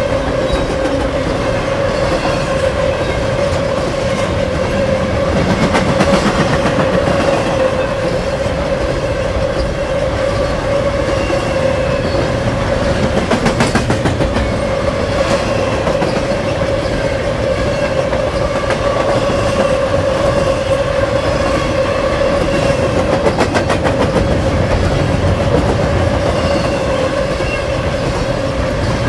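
BNSF freight train rolling past, its wheels clacking in a regular rhythm over the rail joints, with a steady tone running underneath.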